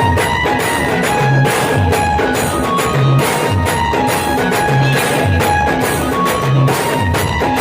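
A band playing a traditional folk tune: a steady deep drum beat about once a second under a melody of short held notes, with sharp percussion strokes.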